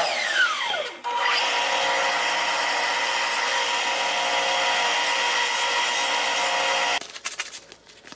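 Stationary belt sander running with a steady, even whine. In the first second a whine falls steeply in pitch. The sander sound cuts off abruptly about a second before the end, leaving a few light handling knocks.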